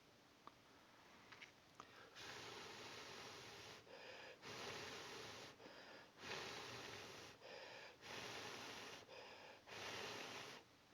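A person blowing hard and repeatedly close to the microphone, likely blowing on freshly poured hot glue to cool it. There are five long blows, each about a second, with quick breaths in between, starting about two seconds in.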